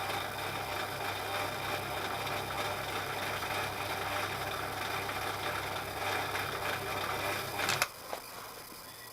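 Milling machine running steadily, a motor and gearbox hum with a higher whine. Near the end a single sharp click, after which the sound drops away to a much quieter level.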